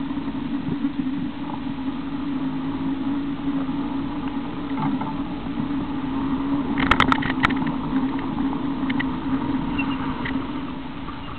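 Engine of an off-road vehicle running at a steady drone while driving over sand, with a brief burst of sharp rattling clicks about seven seconds in.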